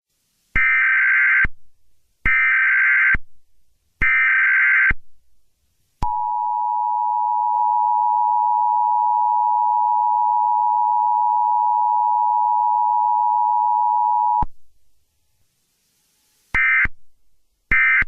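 Emergency Alert System tones: three one-second SAME data bursts of harsh digital screeching, then the two-tone attention signal held steady for about eight and a half seconds. Two shorter data bursts follow near the end.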